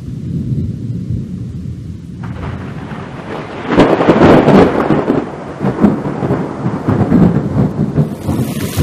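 Thunder rumbling low, then a loud crash of thunder about four seconds in that rolls on for several seconds. Near the end, steady rain starts to hiss.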